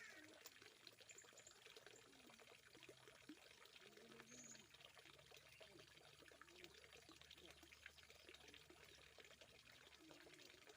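Near silence with a faint, steady trickle of running water.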